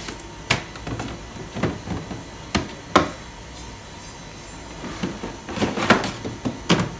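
Plastic food-storage containers knocking and clattering against each other and the refrigerator shelves as they are shifted and pulled out. It is a string of sharp knocks, the loudest about three seconds in and a quick cluster near the end.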